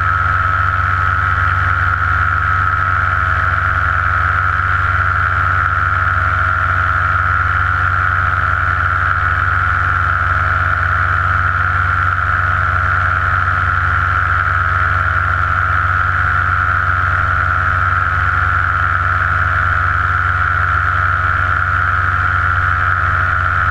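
Paramotor engine and propeller running steadily in flight, heard close from the pilot's head-mounted camera: a high steady whine over a low drone, holding one pitch with no change in throttle.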